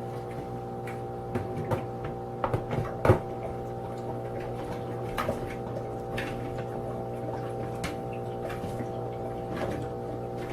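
A steady hum made of several fixed tones, with scattered clicks and knocks over it; the loudest knock comes about three seconds in.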